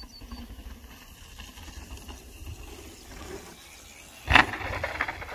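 Faint low rumble. About four seconds in, a mountain bike lands hard on the ground after a jump: one loud sudden impact, then about a second of rough noise.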